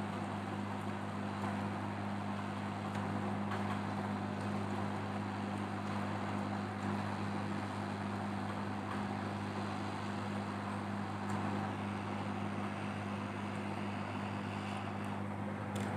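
Hot-air rework station blowing steadily, an even rush of air over a constant electric hum.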